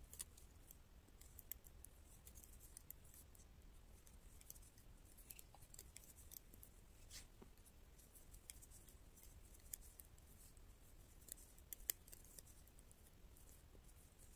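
Faint, irregular clicking of metal double-pointed knitting needles tapping against each other as stitches are worked around a sock, with one sharper click near the end.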